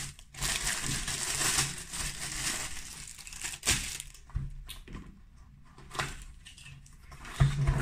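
Clear plastic packaging bag crinkling and rustling as it is pulled off a cardboard product box, with a sharp snap about three and a half seconds in.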